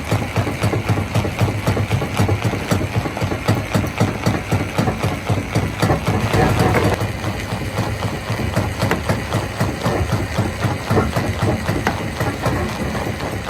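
Stone crusher running, with a steady low engine drone and a constant irregular clatter of rock, swelling louder for about a second around six seconds in.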